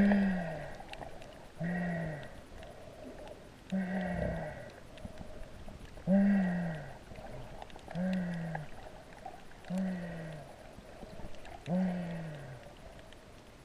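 A person's short, falling moan-like voice sound repeated with each breath, about every two seconds, picked up by a camera under water.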